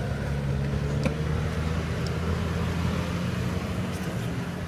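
Off-road 4x4's engine running at a steady, even pitch.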